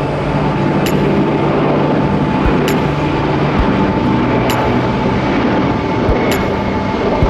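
Jet airliner's engines running steadily, with a low hum and a fainter higher tone held throughout. A short click sounds about every two seconds.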